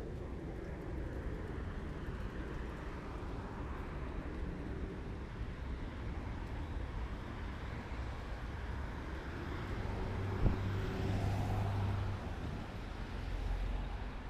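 Road traffic: cars passing on a rain-wet road, with the hiss of a car going by swelling between about ten and twelve seconds in. A short sharp knock about ten and a half seconds in.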